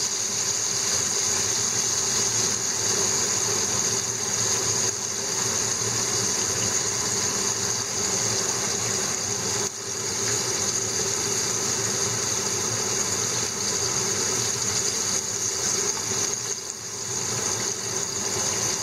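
Butterflied horse mackerel deep-frying in a pan of hot oil: a steady sizzle and bubbling.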